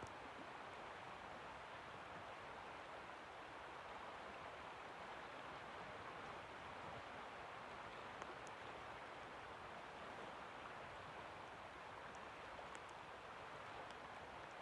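River water flowing: a steady, faint rush without pauses, with a few tiny high ticks in the second half.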